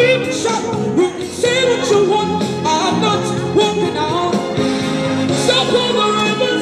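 A woman busker singing live into a handheld microphone over a backing track, both amplified through a portable speaker.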